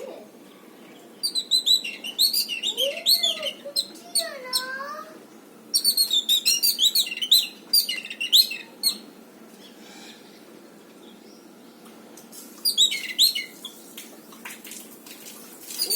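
Birds chirping in quick bursts of high, rapid chirps: one from about a second in to five seconds, another from about six to nine seconds, and a short one near the end. A lower, sliding call rises and falls during the first burst.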